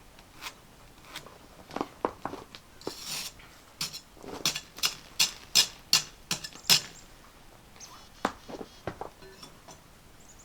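An irregular run of sharp knocks and clicks, a couple of them around two seconds in and about a dozen close together between four and seven seconds in, with light clatter in between.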